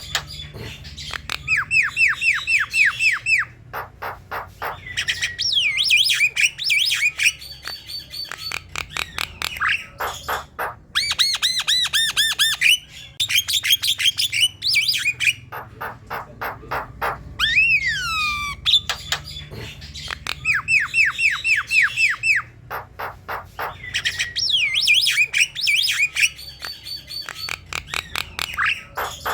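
Javan myna singing a varied song: rapid runs of short chirping notes, falling whistles and harsh squawking notes, with the same sequence of phrases repeating.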